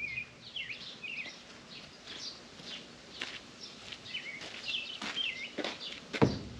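Small birds chirping over and over in short, swooping notes, with two sharp knocks near the end.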